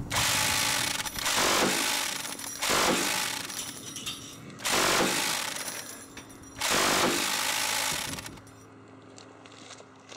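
Minigun firing in five sustained bursts, each about a second to a second and a half long. The bursts stop a little past eight seconds in.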